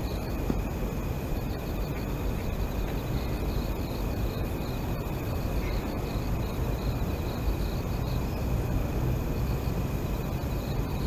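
Night-time outdoor ambience: crickets chirping in short, repeated pulses over a steady low rumble.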